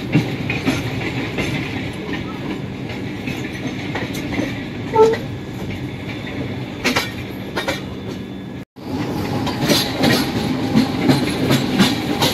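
Suburban electric train running along a station platform, its wheels clattering over rail joints amid steady running noise. The sound cuts out for a moment about two-thirds of the way through, then the clatter goes on.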